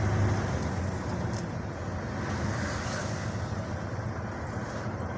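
Steady engine and road noise heard from inside a moving vehicle's cab: a low hum over tyre rumble, a little louder in the first second.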